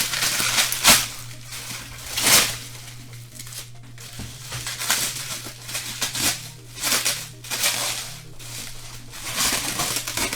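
Packaging crinkling and rustling in a series of short bursts as an item is unwrapped by hand, loudest in the first few seconds, over a steady low hum.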